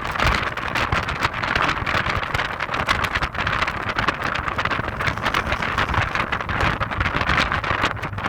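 Heavy wind buffeting on the microphone of an Audi TT 225 Quattro roadster on the move, a steady rushing flutter that covers most other sound. Underneath it is a faint, steady hum from the car and road.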